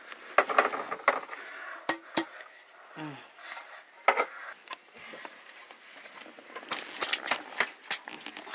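Aluminium momo steamer trays clinking and knocking in a run of short, sharp clicks as steamed dumplings are tipped out of a tray into a plastic basin and the next tray is handled.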